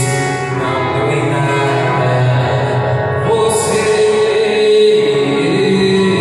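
Live sertanejo music: a male voice singing into a microphone over acoustic guitar, holding one long note from about halfway through.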